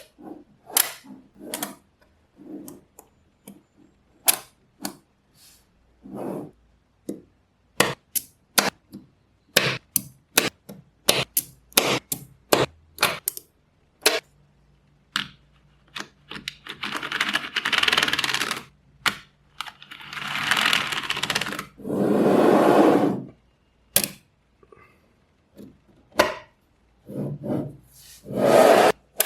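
Small magnetic balls clicking sharply as they snap onto one another, in irregular single clicks and quick runs. About 16 seconds in and again about 20 seconds in come two longer stretches of rattling noise lasting a couple of seconds each.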